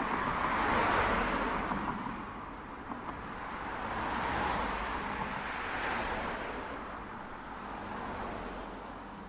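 A pitchless rushing noise that swells and ebbs several times, fading away near the end.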